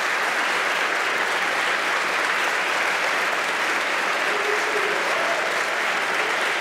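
Steady applause from a large audience of legislators clapping together.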